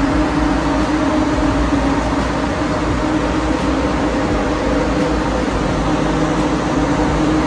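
Steady running noise inside a moving tram car: an even hum with a droning tone, and a second, lower tone joining about two-thirds of the way through.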